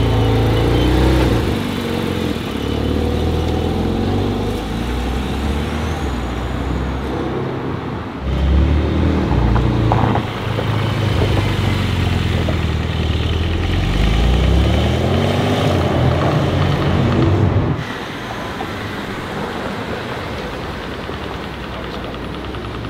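Porsche 911 flat-six engines pulling away on a city street, revving with the pitch climbing and dropping through the gears, loudest in a long pull through the middle. Near the end the engine sound cuts off abruptly, leaving quieter, steady street traffic noise.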